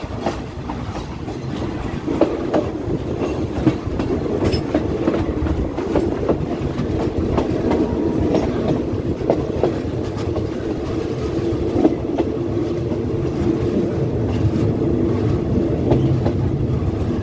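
Express train 86's passenger carriage rolling along the track, heard from an open carriage window: a steady rumble with irregular clickety-clack as the wheels pass over rail joints and points.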